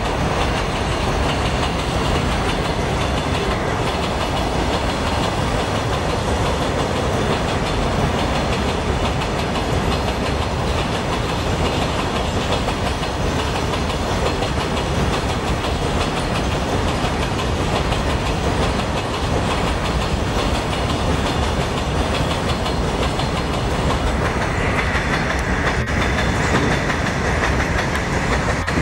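Empty open freight wagons rolling past, their wheels clattering steadily over the rails in a loud, continuous run of noise. A faint high tone joins in near the end.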